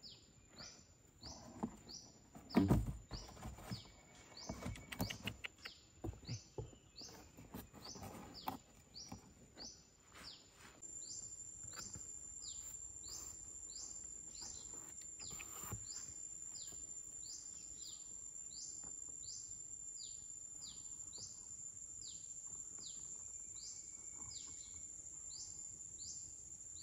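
A bird repeating a short falling chirp about twice a second, over a steady high-pitched insect drone that grows louder a little under halfway through. In the first third, cardboard being handled gives rustles and knocks, the loudest a thump about three seconds in.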